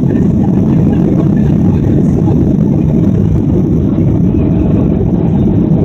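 Boeing 737's turbofan engines at takeoff power heard from inside the cabin over the wing, a loud, steady, deep rumble mixed with the rumble of the wheels rolling on the runway during the takeoff run.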